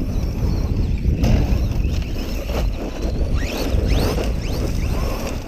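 Wind buffeting the microphone with a loud low rumble, over the high whine of a Redcat Volcano EPX Pro RC truck's brushless motor rising in several short throttle bursts near the middle.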